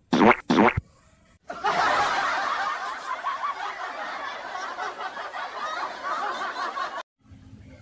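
Two short sounds, then laughter that runs for about five seconds and cuts off abruptly.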